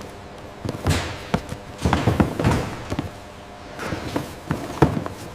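A series of irregular thuds and knocks, a few a second at times, the loudest near the end, over a faint steady hum.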